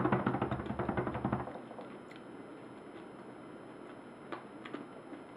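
Close-up chewing and crunching of a dried roasted crab, its shell crackling rapidly between the teeth for about a second and a half. After that come only a couple of faint clicks.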